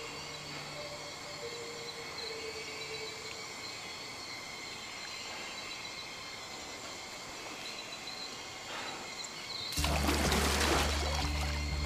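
Film soundtrack: soft sustained music notes over a faint outdoor noise bed, then, about ten seconds in, a sudden loud rush of noise with a deep low drone.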